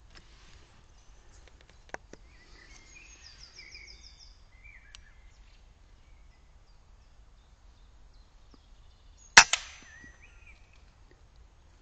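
A single air rifle shot about nine seconds in, with a second, quieter crack a fraction of a second after it. Small birds chirp and trill during the first half.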